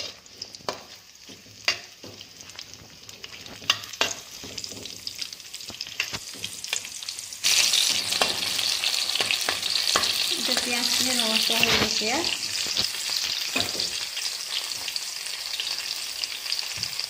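Onions, green chillies, bay leaf and cumin frying in hot oil in a non-stick wok, with scattered light clicks of a spatula against the pan. About seven seconds in, the sizzling turns suddenly louder as the pan is stirred, and it stays loud.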